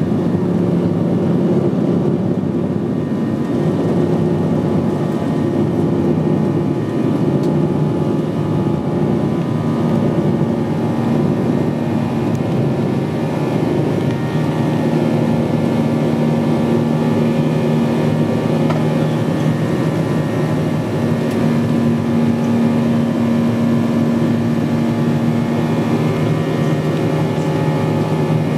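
Boeing 737-800's CFM56-7B jet engines at takeoff thrust, heard from inside the passenger cabin: a loud, steady roar and drone through the end of the takeoff roll, liftoff and initial climb.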